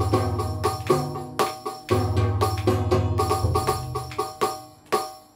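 Roland HandSonic HPD-20 electronic hand percussion pad played with the fingers: a fast rhythmic run of pitched drum strikes over a low sustained bass tone. The playing thins out and fades near the end.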